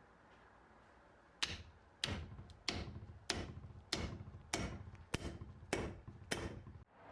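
Nine evenly spaced hammer blows about 0.6 s apart, each a sharp knock with a brief ring, starting about a second and a half in: the axe head being hammered onto its new wooden handle.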